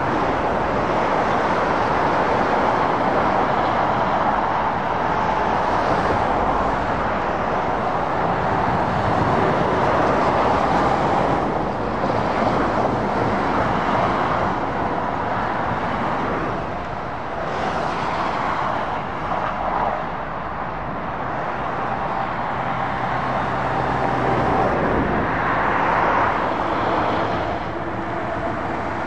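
Steady noise of passing motorway traffic: heavy lorries and cars going by at speed, tyre and engine noise that swells and eases as each vehicle passes.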